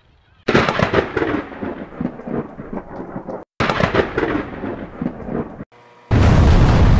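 Thunder-and-lightning crackle sound effect in three sudden bursts: a long crackling one starting about half a second in, a second right after it, and a deeper, heavier rumble starting about six seconds in.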